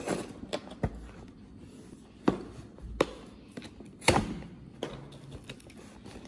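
Cardboard toy box being handled and set down on a table: a handful of separate light knocks and taps, the loudest about four seconds in.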